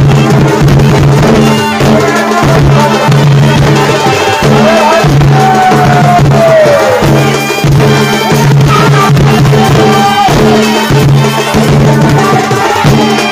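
Live folk music accompanying a Chhau dance: drums beating a steady rhythm under a held low drone and a melody that glides up and down in pitch.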